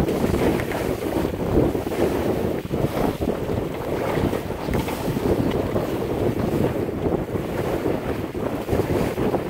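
Wind buffeting the microphone over the rush and slap of water along the hull of a sailboat under sail, a steady gusting noise with no engine running.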